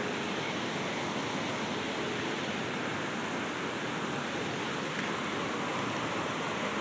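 Steady rush of running water in an ornamental lake.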